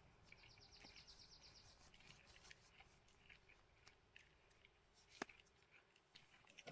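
Near silence: faint outdoor ambience with scattered faint clicks, and a brief, faint, high-pitched trill of rapid pulses starting about a third of a second in.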